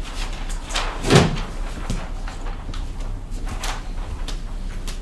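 A dull thump about a second in, with a few light knocks and clicks around it: handling noise at the podium and its microphone as the presenter gathers her papers and steps away.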